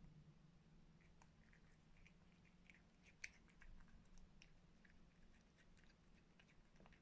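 A cat eating flaked fish from a bowl: faint, irregular wet chewing clicks and smacks, with one sharper click about three seconds in. A low steady hum lies underneath.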